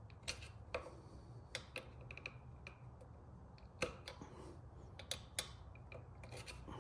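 Screwdriver and E-clip on a motorcycle footpeg's pivot pin: faint, irregular small metal clicks and taps as the clip is pushed onto the pin, the loudest about four seconds in.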